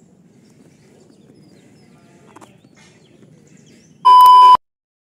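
Faint low background noise, then about four seconds in a loud, steady high beep lasting about half a second: a TV colour-bars test-pattern tone used as an editing effect. It cuts off sharply into silence.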